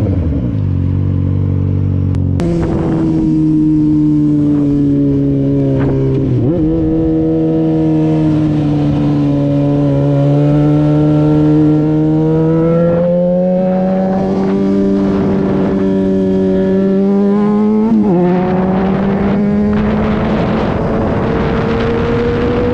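Yamaha motorcycle engine running under way, heard from the rider's seat, its note slowly falling and rising with the throttle. The pitch changes sharply about two seconds in, then dips briefly twice, about a third of the way in and again near 18 seconds.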